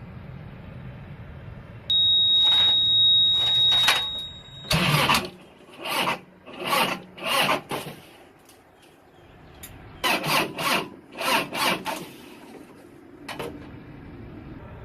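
Reefer unit's diesel engine cranked on a low battery: a steady high-pitched tone for about three seconds, then two runs of slow, labored cranking pulses, roughly one and a half a second, that never catch, and a last single pulse. The battery is too weak to turn the engine over fast enough to start.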